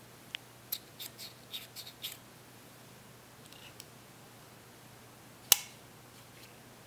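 Stainless-steel wire ground-glass-joint clip clicking and tapping against glassware: a quick run of small clicks in the first two seconds, a few faint ticks, then one sharp click about five and a half seconds in as the clip is fitted onto a glass stopcock.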